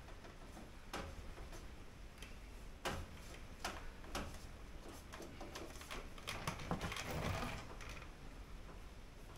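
Hands working on a car door's window frame: scattered light clicks and taps at irregular intervals, with a longer rubbing, scraping sound from about six and a half to seven and a half seconds in.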